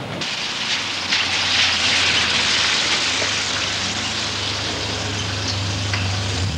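Ambulance driving past close by: a rushing engine and tyre noise that is loudest about two seconds in, over a steady low engine hum that grows stronger in the second half.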